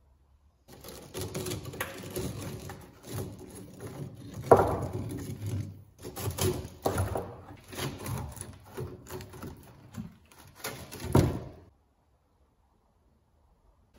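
Crumbling firebrick lining being broken out of an old steel stove body by hand: irregular crunching, scraping and clattering of brick and ash pieces, with a few sharper knocks, the loudest about a third of the way in and another near the end. The sound starts just under a second in and cuts off suddenly well before the end.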